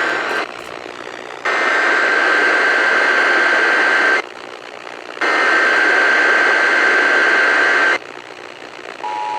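Emergency Alert System SAME header data bursts coming over a radio with static, as part of a Required Monthly Test. The tail of one burst is followed by two more of about three seconds each, with about a second of quieter static between them. Near the end the steady two-tone attention signal begins.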